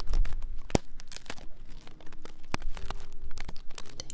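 Fingers rubbing and pressing the silicone ear of a binaural microphone, heard close up: dense crackling scratches with irregular sharp clicks and a low rumble of handling.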